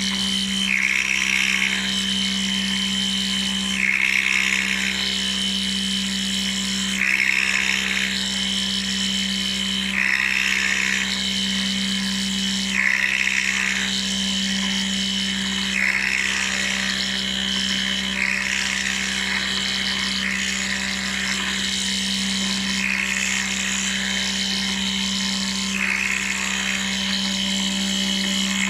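CNC metal milling machine running and machining: a steady hum with a high whine that swells for about a second roughly every three seconds.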